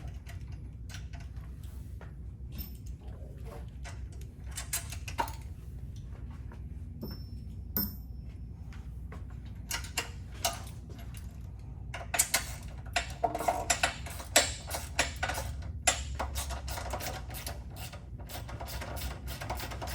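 Hand tools working the stock sway bar mounting bolts on a Can-Am Spyder: scattered metal clicks and clinks. About twelve seconds in, they give way to a dense run of rapid ratchet-wrench clicking, over a steady low hum.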